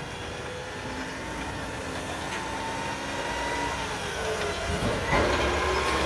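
Mack front-loading garbage truck with a McNeilus body driving up, its diesel engine getting louder as it approaches, with a steady whine over the rumble.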